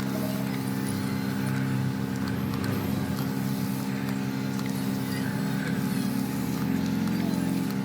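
A vehicle engine running steadily, its pitch holding level, with a brief wavering pulse in its tone near the end.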